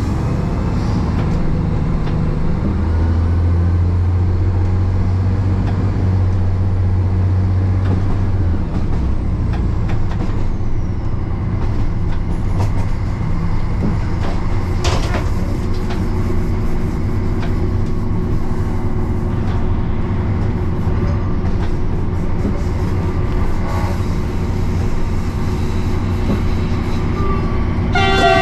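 Regio Shuttle diesel railcar running along the track, a steady low engine hum and wheel-on-rail rumble with a few clicks over the rails; the strong low engine note eases about eight seconds in. Right at the end the railcar's horn starts to sound.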